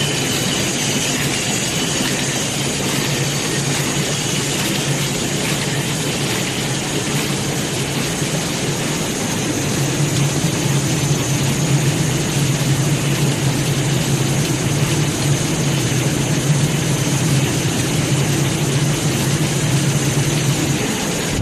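Bolt-making machines running on a factory floor: a loud, steady mechanical din over a low hum, growing a little louder about halfway through.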